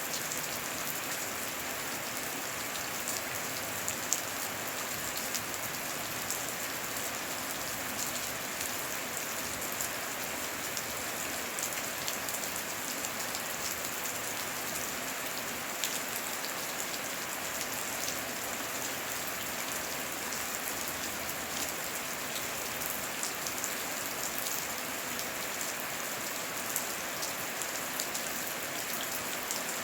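Heavy rain falling steadily, an even hiss of rain with many scattered, sharper drop impacts ticking through it.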